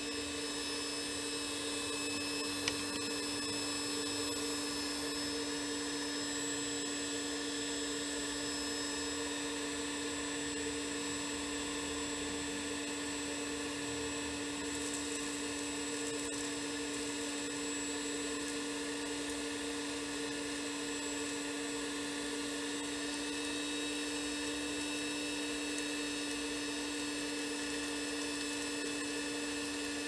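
Homemade vacuum cleaner built from a hair dryer, its small fan motor running with a steady whine while the hose nozzle sucks up debris. A single sharp click comes about three seconds in.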